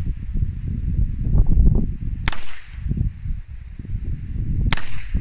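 Two shots from a Colt Police Positive revolver in .38 S&W, fired double action about two and a half seconds apart, each with a short ringing tail. Heavy wind rumbles on the microphone throughout.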